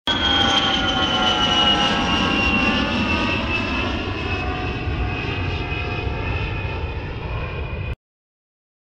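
Jet aircraft engine sound with a high whine of several tones gliding slowly downward over a steady rumble. It starts abruptly, eases slightly in loudness, and cuts off suddenly about eight seconds in.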